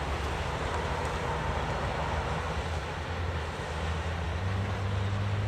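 Freight train rumbling steadily, with a low hum that grows stronger near the end.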